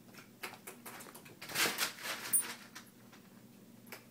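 Kittens scampering and batting small foil balls across carpet: a string of light clicks and scuffles, with a louder scratchy rustle about a second and a half in.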